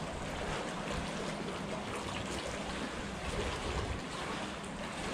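Choppy water lapping and splashing against a concrete seawall, a steady wash of noise with small splashes.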